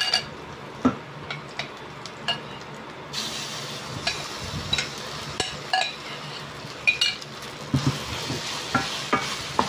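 Marinated beef strips scraped with a wooden spatula from a ceramic bowl into a hot stainless-steel pan with oil. About three seconds in, the meat starts sizzling and keeps sizzling, while the spatula knocks and scrapes against the bowl and pan as the beef is stirred.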